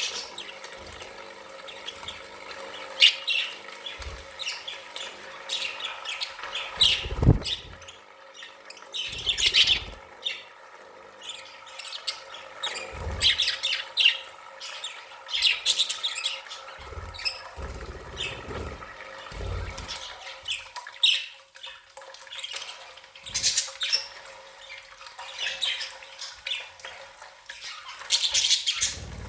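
Budgerigars chirping and chattering in a run of quick, high calls with short squawks, over occasional brief low thumps.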